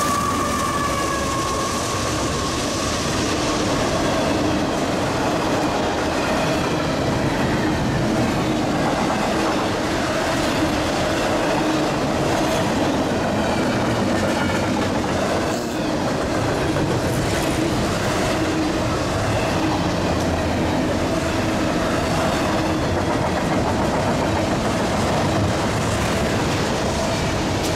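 Double-stack intermodal freight train rolling past: the continuous rumble and clatter of container well cars' wheels on the rails.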